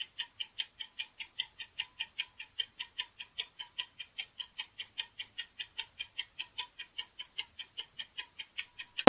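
Ticking countdown-timer sound effect, about five quick, even ticks a second, counting down the time to answer a quiz question.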